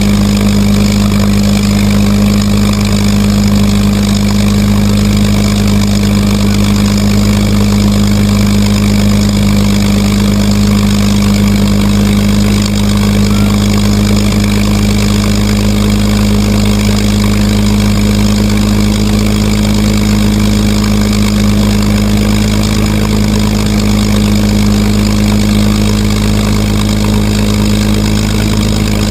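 P-51 Mustang's V-12 Merlin piston engine running steadily at a constant low speed, its pitch unchanging throughout.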